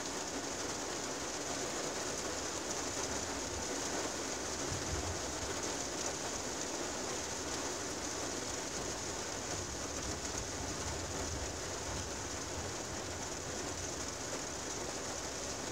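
Steady rain falling on a car's windshield, heard from inside the cabin as an even patter.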